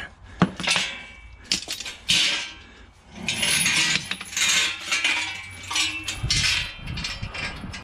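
A welded steel utility-bed frame for a lawn mower being picked up and handled, with a sharp metal knock about half a second in. Then irregular clanking and clinking of metal, with the chain attached to the frame jingling.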